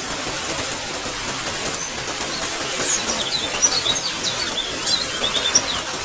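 Steady rain hiss with small birds chirping over it, a quick run of short chirps starting about three seconds in.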